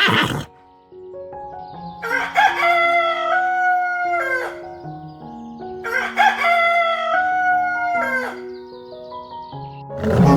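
A rooster crowing twice, each crow about two and a half seconds long, over background music.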